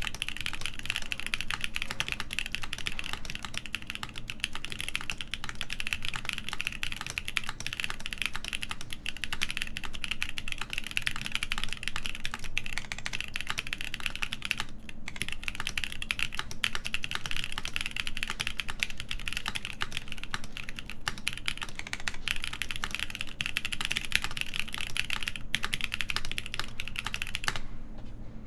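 Continuous fast typing on a Kepler TKL mechanical keyboard with stock, factory-lubed BSUN X switches on a full polycarbonate plate under GMK keycaps: a dense patter of key clicks. It breaks off briefly about halfway through and stops shortly before the end.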